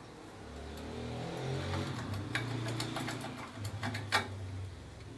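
A low engine hum that shifts in pitch, with a few light metal clicks as a screwdriver works at a screw in an old Elgin sewing machine.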